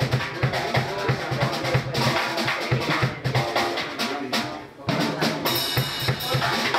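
A drum kit played during a sound check: a fast run of kick and snare or tom hits, with a bright ringing wash like cymbals about five seconds in.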